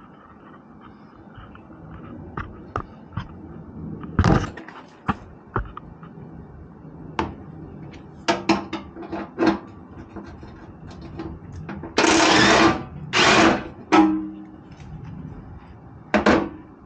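Scattered clinks and knocks of hand tools on metal, then a cordless power tool run in two short bursts about twelve and thirteen seconds in, backing out bolts in a Jeep's wheel well; its motor hum trails off briefly after the second burst.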